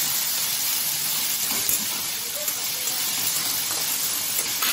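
Chopped cabbage, capsicum and carrot sizzling steadily in oil in a hot kadhai over a high gas flame, stir-fried with a metal spatula that gives a few light knocks.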